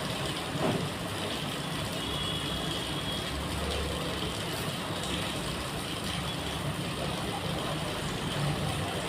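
Steady motor-vehicle noise: a low engine rumble with street background noise, and nothing sudden standing out.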